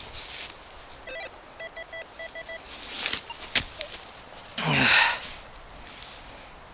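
Rutus Alter 71 metal detector beeping on a buried target as the coil is swept over it: one short tone about a second in, then a quick run of about seven beeps at the same pitch. Two noisy scraping rustles follow, the louder one near the end.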